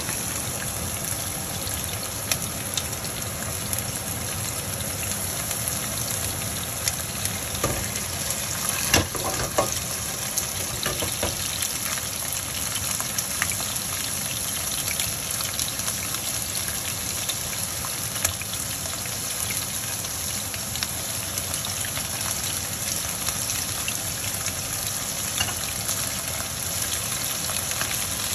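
Shrimp searing in hot olive oil in a sauté pan: a steady sizzle with scattered pops, and a few louder clicks near the middle as more shrimp go in.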